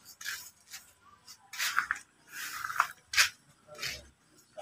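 Several short, scratchy sounds of hand work, spaced irregularly with quiet gaps between them.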